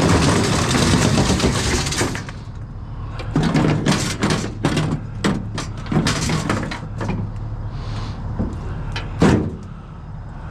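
Objects being handled: about two seconds of rustling and scraping, then a run of sharp knocks and clatters, over a steady low hum.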